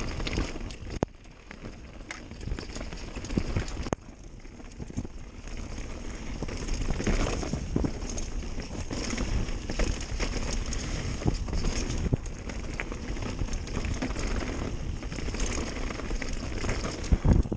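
Mountain bike riding fast down a dirt trail: tyres rolling over dirt and rocks, with the bike rattling and knocking over bumps.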